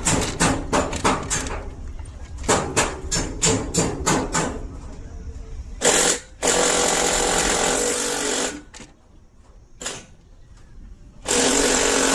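Workshop power-tool work: a run of regular knocks, about three to four a second, then a tool running steadily in two spells with a quieter pause between.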